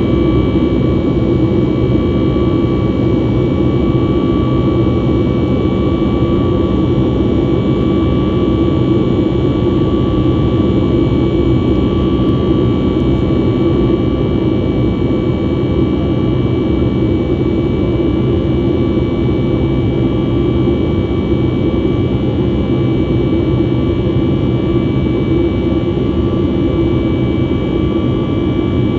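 Steady jet noise heard inside the cabin of a Boeing 737 MAX 8 in flight: the CFM LEAP-1B engines give a deep, even rush with a few steady whining tones on top, unchanging throughout.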